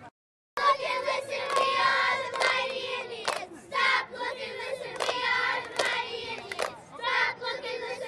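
Young girl cheerleaders chanting a cheer together in unison, with sharp hand claps. The sound drops out for about half a second at the very start.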